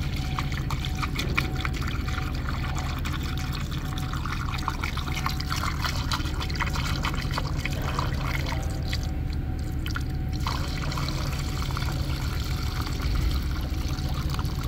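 Premixed 50/50 coolant pouring steadily from a plastic jug through a plastic funnel into a car's coolant reservoir, filling the cooling system. A steady low hum runs underneath.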